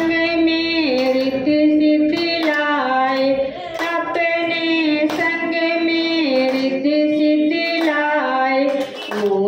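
A woman singing a Hindi devotional bhajan to the Goddess into a microphone, moving between held notes, with listeners clapping along to the beat.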